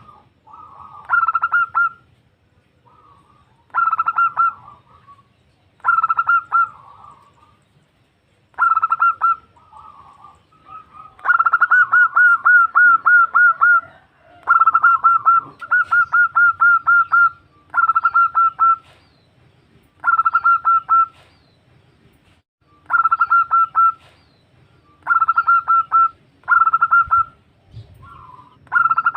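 Zebra dove (perkutut) calling: short bursts of rapid, pulsing coo notes repeated about every two seconds, with two longer runs of about a dozen notes near the middle. It is presented as a female calling to a male.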